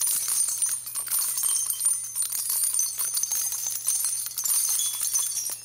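Small bells jingling in a continuous high shimmer of tiny clinks, a transition sound effect that thins out near the end.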